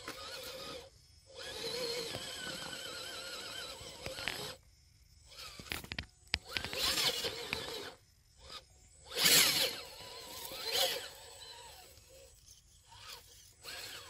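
A 1/10-scale RC rock crawler's electric motor and geartrain whine in bursts of throttle as it climbs, with the tires scrabbling over rock. The loudest burst comes about nine seconds in.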